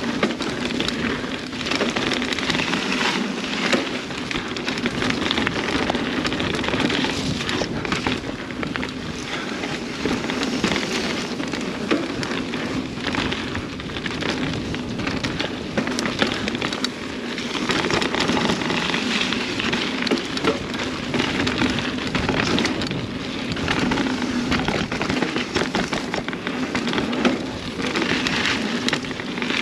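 Mountain bike riding fast down a dirt trail: tyres crackling and crunching over dirt and rock, with the bike rattling over bumps.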